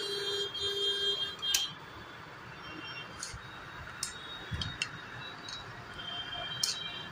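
Small metal clicks and taps, scattered and irregular, as the reverse-lever fork (chimta) is worked into place inside a sewing machine's head by hand. Two short beeps sound in the first second or so.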